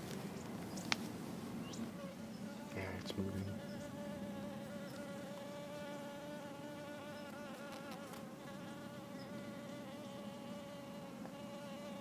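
A bee buzzing close by: a steady hum with a slight waver in pitch that sets in about two seconds in and carries on. A sharp click comes about a second in, and a brief low thump around three seconds.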